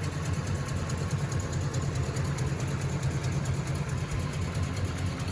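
Oldsmobile 350 two-barrel V8 idling steadily with a low, even rumble.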